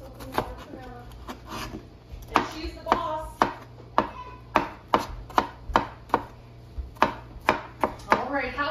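Chef's knife chopping green bell pepper on a plastic cutting board, each stroke a sharp knock of the blade on the board. A few scattered strokes at first, then a steady run of about two to three a second.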